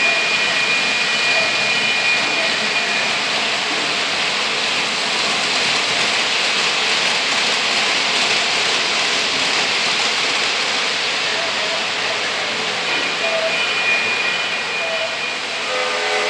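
O gauge model freight train rolling past on three-rail metal track: a steady rushing of wheels on the rails mixed with the locomotive's motor noise.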